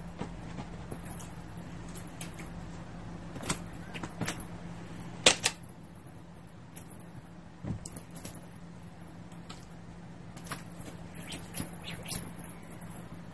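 Feather wand cat toy swung and batted by kittens: scattered light clicks and rustles, the sharpest about five seconds in and a cluster of them near the end.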